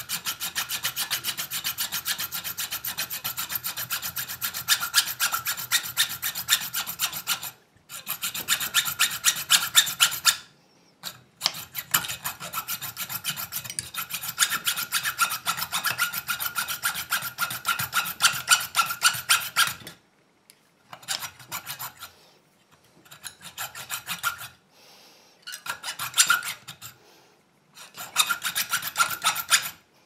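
Hand hacksaw with a fresh blade cutting into the brass body of an ABUS 45/50 padlock held in the hand. The rasp of rapid, even back-and-forth strokes carries on with brief pauses about 7 and 10 seconds in. In the last third it comes in shorter bouts with gaps. The cut is to take away the side of the brass body and expose the hardened steel shackle.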